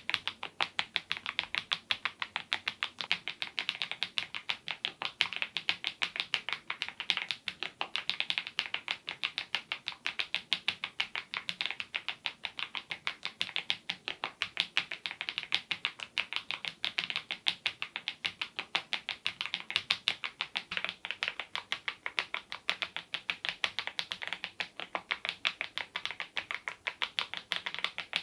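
Mechanical keyboard fitted with HMX Cheese switches and Keytok Godzilla keycaps in the Smile profile, typed on steadily: a continuous run of crisp key clacks, several a second.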